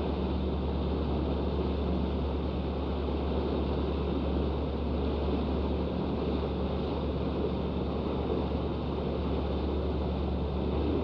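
Boat engine running steadily under way, a constant low drone over the rush of the churning wake.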